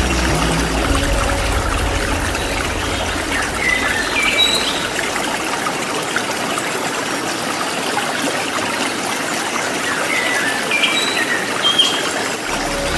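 Steady rushing of running water, with brief bursts of bird chirps twice, about four seconds in and again near the end.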